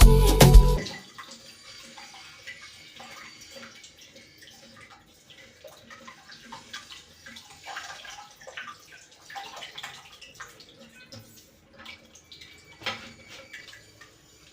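Music cuts off about a second in, then water runs and trickles quietly, with many small scattered clicks and knocks.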